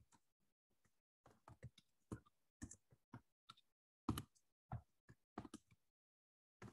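Typing on a computer keyboard: faint, uneven key clicks in short runs with brief pauses, the loudest about four seconds in.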